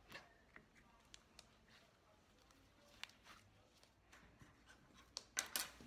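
Faint soft scrapes and crackles of hands kneading slime in a plastic bowl of cornstarch, with a short cluster of louder clicks about five seconds in.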